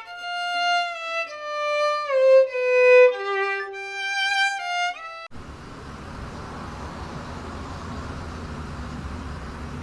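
A solo violin plays a short melody of falling notes for about five seconds, then stops abruptly. It gives way to a steady background hiss with a low rumble.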